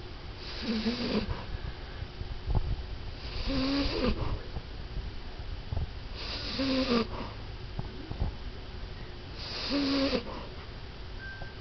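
French Bulldog, 14 years old, snoring in her sleep: four snores, about one every three seconds.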